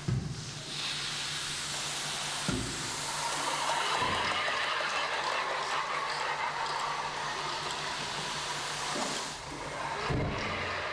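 Rube Goldberg kinetic sculpture at work: a steady hissing rush that builds over the first second and stops suddenly about nine seconds in. A few knocks come at the start, about two and a half and four seconds in, and once more near the end.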